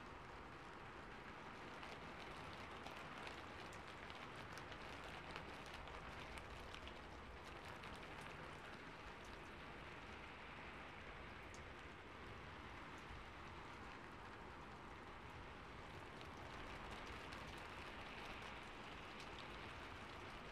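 Faint steady rain, a continuous hiss with a light patter of scattered drops.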